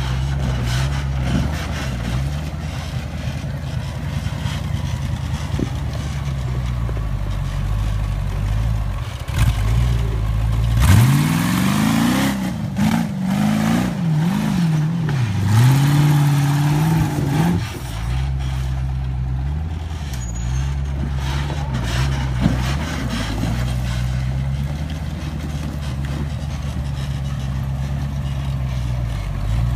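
Rock buggy engine running at low revs, then revved hard in rising and falling surges for about six seconds, starting about eleven seconds in, as it claws up a steep, loose dirt hill, before dropping back to a steady low run.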